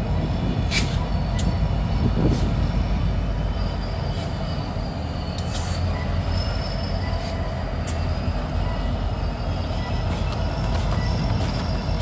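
Two EMD SD60 diesel-electric locomotives, each with a 16-cylinder EMD 710 engine, moving slowly in reverse. Their engines make a steady low rumble, with a thin, wavering squeal from the wheels against the rail and a few sharp clicks along the way.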